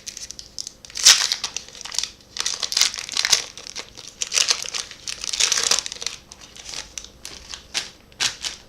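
Foil booster-pack wrapper crinkling in repeated irregular bursts as it is handled and torn open, the loudest crackle about a second in.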